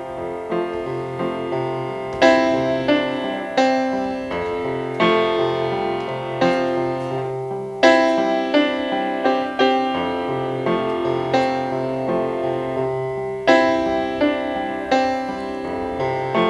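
Instrumental intro of an indie rock song played live, led by a piano struck in repeated chords on a steady pulse over a held bass line.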